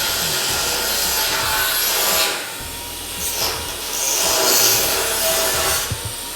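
Steel being worked with an abrasive tool, a harsh rasping, rubbing sound in two long passes of about two seconds each with a short lull between.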